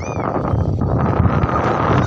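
Strong wind buffeting the microphone: a loud, rough rushing rumble that starts suddenly and holds steady.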